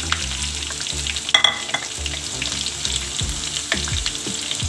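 Chopped garlic, green chillies, cumin seeds and curry leaves sizzling and crackling in hot oil in a steel kadhai as a spatula stirs them: the tempering stage of the masala. About a second and a half in there is one short ringing metallic clink.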